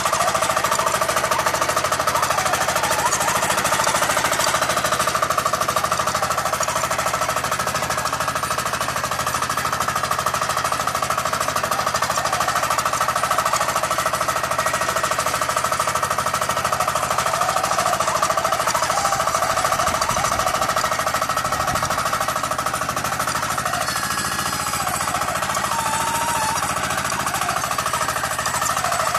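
Single-cylinder engine of a walk-behind power tiller running steadily under load with a rapid, even chugging while its rotary tines work the dirt.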